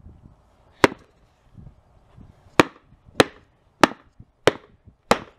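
A sneaker's sole being smacked against concrete to knock mud off it: six sharp slaps, one on its own, then five in quick succession about two-thirds of a second apart.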